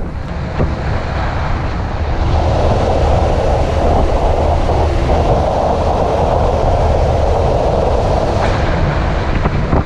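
Willys jeep driving along a road: steady engine and road rumble, with wind rushing over the microphone held out the window. The rushing gets louder from about two seconds in and eases near the end.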